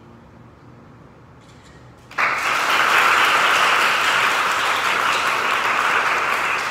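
A quiet room, then an audience breaks into applause about two seconds in and keeps clapping at an even level.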